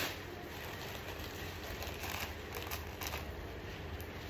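Light rustling and handling noises from clothing sets being sorted, over a steady low hum.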